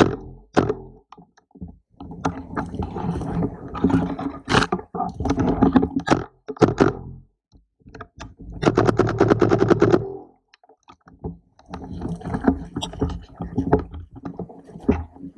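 Knocks and scrapes of a player moving with gear. About eight and a half seconds in comes a rapid burst of full-auto airsoft rifle fire lasting about a second and a half.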